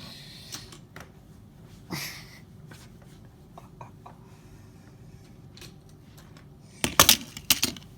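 Sharp clicks and knocks of small objects being handled, with a short scraping rustle about two seconds in and a quick run of loud clicks near the end.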